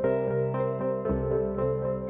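Background music: soft ambient instrumental with sustained keyboard-like notes changing about once a second.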